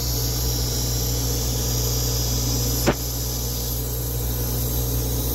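Siemens Dimension EXL 200 chemistry analyzer's LOCI module running: a steady machine hum with a hiss over it, and a single sharp click about three seconds in.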